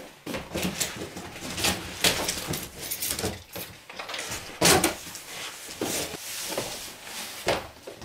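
Cardboard box flaps being handled: rustling, scraping and knocking of cardboard, with a louder bump a little past halfway.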